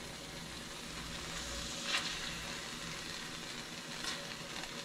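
Shrimp frying in hot olive oil in a pan, a steady sizzling hiss. A brief louder tick about two seconds in, and a fainter one about four seconds in.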